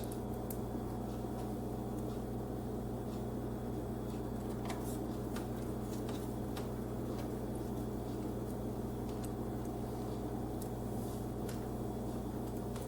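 A steady electrical hum, with faint, scattered small clicks of a screwdriver and screws as motherboard screws are started into the case standoffs.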